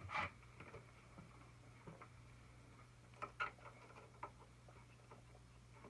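Faint scattered clicks and taps of small parts being handled as a serger's needles are moved to new positions and tightened in place. The loudest click comes right at the start, and a quick cluster follows about three seconds in, over a steady low hum.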